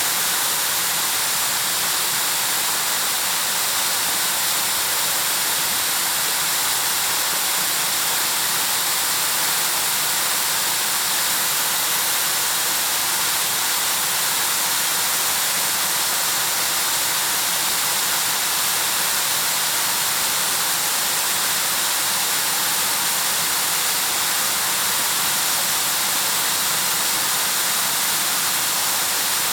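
Waterfall pouring steadily, a constant loud hiss of falling water with its energy high up and no change in it.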